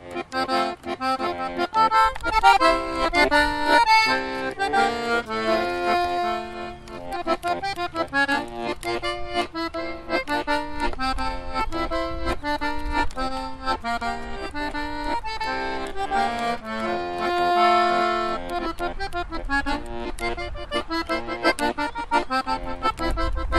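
A button accordion played solo, a melody moving over sustained chords.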